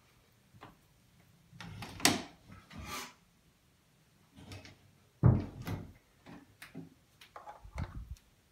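A few knocks and scraping thumps in three short clusters, about two, five and eight seconds in; the loudest come near two and just after five seconds.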